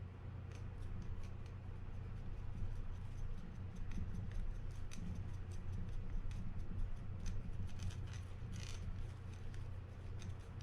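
Scattered light clicks and taps of small metal fishing-reel parts and tools being handled while the reel's gears are greased, over a steady low hum.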